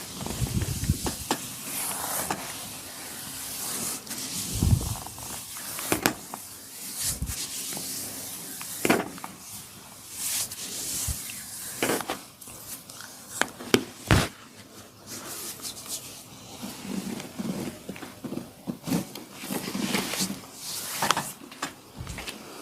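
Hands rubbing and pressing on hair and skin during a massage, with scattered sharp cracks and clicks and a few dull thumps.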